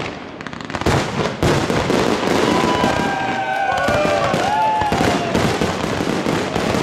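Aerial fireworks display: a rapid, continuous barrage of shell bursts and crackling stars, building up about a second in. Several whistling tones glide up and down over the crackle from about halfway.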